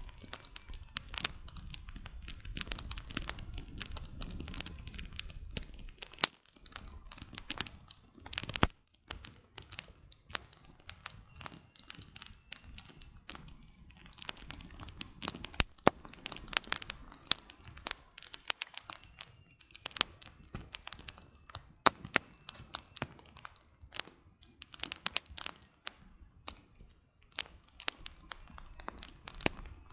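Wood fire burning, firewood crackling and popping in a dense, irregular stream of sharp snaps over a low, steady rush of flame.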